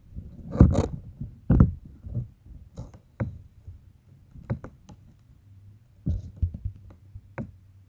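Slime being squeezed and poked by hand, making irregular short pops and clicks, the loudest about half a second and a second and a half in, with a quick cluster near the end.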